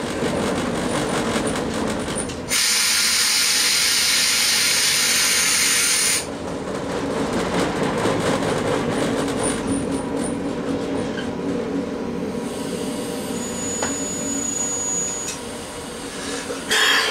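Train running, heard from the driver's cab, with steady rumble. A couple of seconds in, a loud even hiss starts abruptly, lasts about four seconds and cuts off sharply; near the end a faint thin high whine comes and goes.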